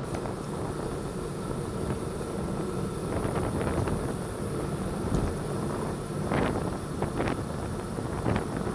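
Wind buffeting a bicycle-mounted front camera's microphone while riding on the road, a steady low rumble of noise, with a few short knocks or rattles about six to seven seconds in.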